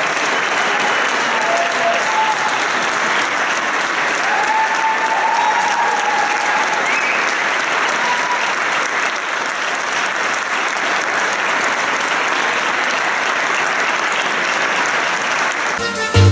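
Audience applauding steadily. Near the end it cuts off and loud electronic music with a heavy bass beat starts.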